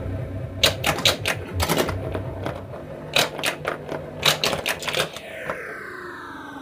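1980 Williams Alien Poker pinball machine in play: sharp solenoid and relay clacks in quick clusters as the ball scores, about a second in and again from about three to five seconds. Near the end a set of electronic tones sweeps downward together.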